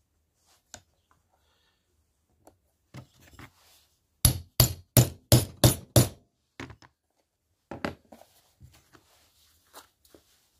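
Hammer blows on a steel rivet setter, driving a copper saddle maker's rivet through a leather knife sheath against an anvil: six sharp strikes about three a second, a few seconds in. Lighter knocks and handling of the tools come before and after.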